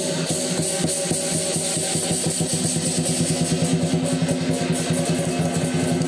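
Lion dance percussion: the big drum beating a fast, steady rhythm, several strokes a second, with clashing cymbals and a ringing gong.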